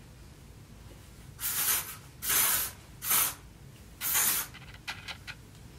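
Fave 4 aerosol texture spray being sprayed into hair in four short hissing bursts, each about half a second long.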